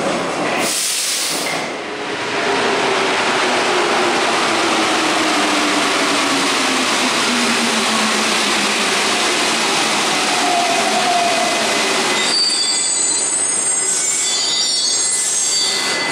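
Paris Metro train on rubber tyres pulling in past platform screen doors and braking, with a loud rolling rush and a motor whine that falls in pitch as it slows. From about twelve seconds in the rush gives way to a steadier sound with a thin high tone.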